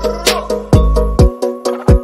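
Background electronic music with a steady beat and deep bass drum hits.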